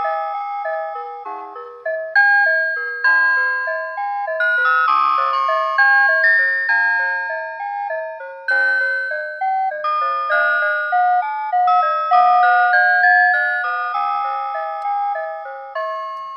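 Citizen Moulin alarm clock (made by Rhythm) playing one of its built-in electronic alarm melodies: a tune of chime-like notes with accompaniment, each note fading after it sounds. The tune ends with a last note dying away near the end.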